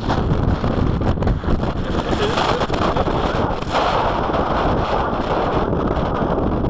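Strong, gusty wind buffeting the microphone: a loud, continuous rumble with a rougher, hissier stretch midway through.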